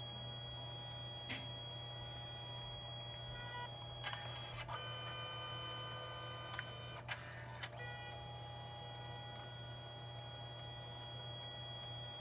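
Canon Selphy CP1300 dye-sublimation photo printer running mid-print: a steady motor whine made of several tones. There is a click about a second in. From about four to eight seconds in the whine changes pitch with a few clicks as the mechanism moves the paper between colour passes.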